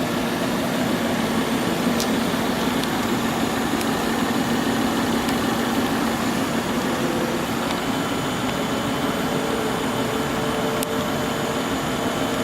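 Car engine idling steadily with an even hum.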